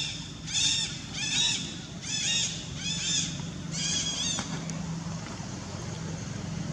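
A series of about six short, high-pitched arching animal calls, one roughly every second, stopping about four and a half seconds in, over a low steady hum.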